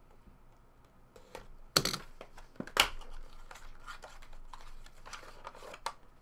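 Hands handling a cardboard trading-card mini box and thick clear plastic card holders: a run of light clicks and taps, with two sharper knocks about two and three seconds in as the cased cards clack together.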